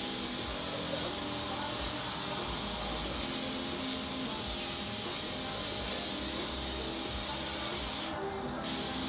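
Air-fed spray gun shooting thinned Raptor bed liner onto a jetski hull, a steady loud hiss. The trigger is let off briefly about eight seconds in, then the spraying starts again.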